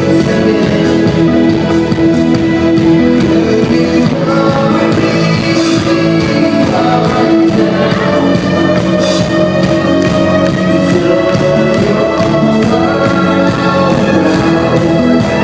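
Live electronic rock band playing loudly, with held synthesizer and guitar notes over a steady drum beat.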